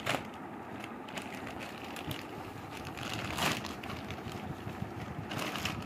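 A plastic courier mailer bag crinkling and rustling as it is cut and pulled open by hand, with one louder crinkle about three and a half seconds in.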